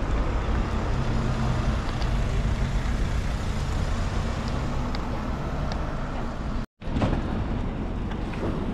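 Car on the move: steady engine hum and road noise, broken by a split-second gap of silence near the end.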